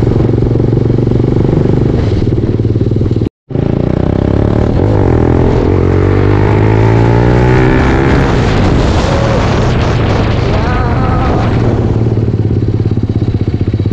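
Faired sport motorcycle's engine running on the move, with wind noise on the bike-mounted microphone. The sound cuts out very briefly about three seconds in, and then the engine pitch rises as the bike accelerates.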